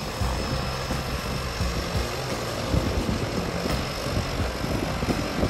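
Engine and propeller of a de Havilland Canada Otter floatplane running steadily at low power as it taxis on the water.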